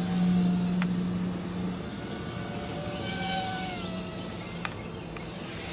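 Crickets chirping in a steady pulsing trill throughout. Under them, the faint whine of a small WLToys V252 Pro quadcopter's motors rises and falls in pitch as it flies, with two faint clicks.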